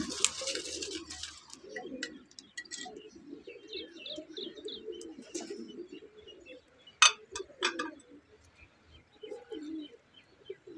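Doves cooing over and over, with smaller birds chirping above them. A short hiss comes at the start, and two sharp clatters about seven seconds in are the loudest sounds.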